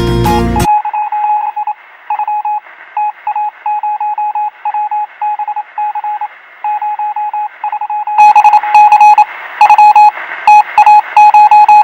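Electronic beeping at one steady pitch, switched on and off in an irregular run of short and long beeps over a steady hiss, getting louder and fuller about eight seconds in. Music cuts off just before the beeping starts.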